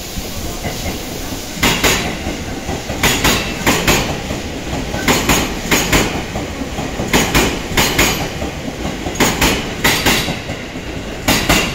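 E257 series electric train passing at speed, its wheels clicking over a rail joint. Each bogie gives a quick double click, in groups about every two seconds, over a steady running rumble.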